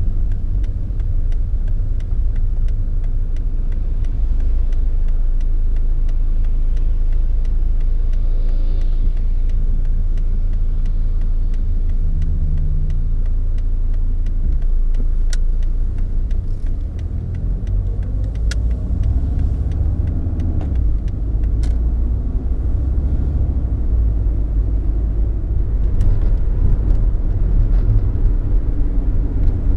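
Mercedes 190D's 2.5-litre five-cylinder OM602 turbodiesel running while the car drives, heard from inside the cabin as a steady low rumble with engine and road noise. The engine note shifts a little as the car slows and pulls away again.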